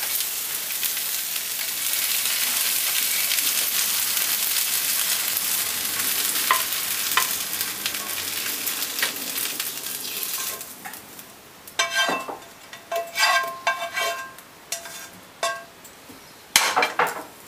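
Stir-fried rice noodles, tofu and broccoli sizzling in a nonstick frying pan as a spatula stirs and scoops them out, the burner already switched off. The sizzle dies away about ten seconds in, followed by scattered clicks and scrapes of the spatula against the pan and plate.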